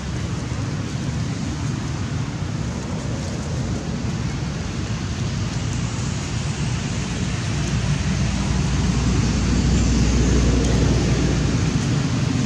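Wind buffeting the camera microphone: a steady low rumbling hiss that swells louder about eight seconds in.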